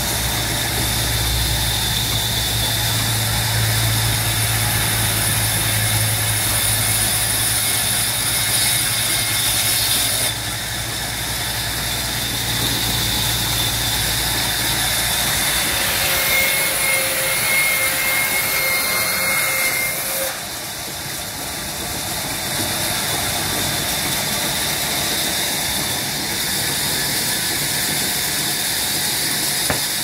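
Electric sawmill band saw running, a steady machine hum with a high whine over it. The low hum drops away about halfway through while the whirring carries on.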